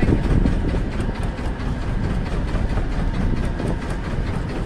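Fishing boat's engine running steadily at low revs.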